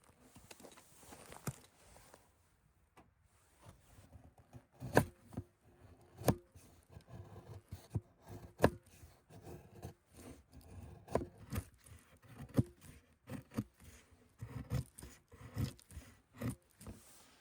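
Irregular knocks, clicks and scrapes of things being handled close by, about a dozen sharper knocks coming more thickly after the first few seconds.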